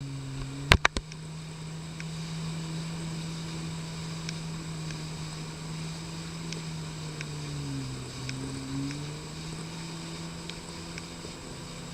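Jet ski engine running steadily, its pitch dipping and recovering briefly about eight seconds in. Three sharp clicks sound just before the first second.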